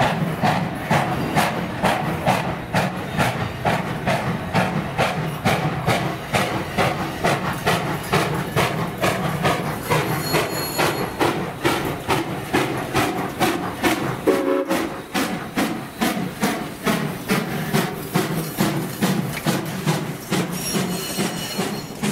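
Steam locomotive working, its exhaust chuffing in an even rhythm of about two beats a second, with a brief tone about two-thirds of the way through.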